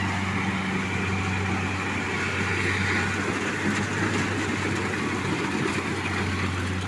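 Combine harvester's engine running steadily at a constant low hum, with the rattle and whir of the machine working through the rice.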